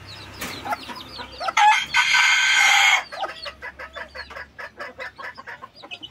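Chicks peeping in short, rapid, falling chirps, with a rooster crowing once, loudly, for about a second and a half just before the middle.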